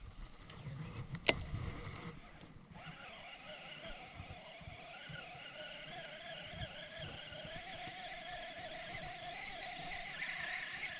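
A single sharp click about a second in, then a steady engine-like drone with a slightly wavering pitch from about three seconds in.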